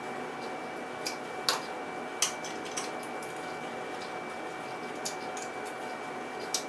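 Plastic Duplo bricks clacking as a toddler presses them onto a brick tower: a handful of short, sharp clicks at irregular intervals, the loudest about one and a half and two seconds in.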